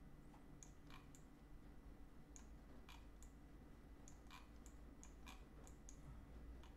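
Faint computer mouse clicks: about a dozen short, irregular clicks, bunched more closely in the second half, over a faint low hum.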